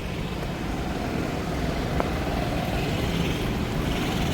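Steady engine and road noise of a moving vehicle, with a single short click about two seconds in.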